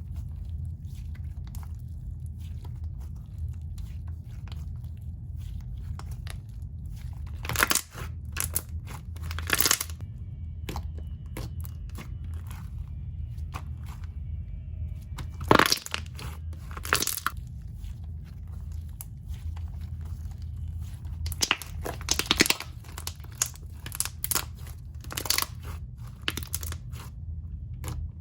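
Thick, glossy slime being poked and stretched, giving sharp scattered pops and crackles as air bubbles burst. There are a few loud pops in the first half and a denser run of pops near the end, over a steady low hum.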